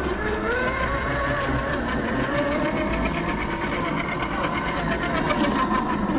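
Small brushed electric motor and gear drive of a 1/10-scale Axial SCX10 II RC crawler whining, its pitch rising and falling with the throttle.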